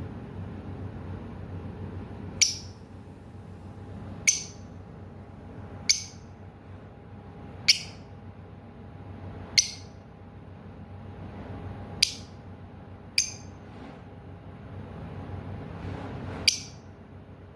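Lovebird giving short, sharp, high-pitched chirps, one about every two seconds, eight in all.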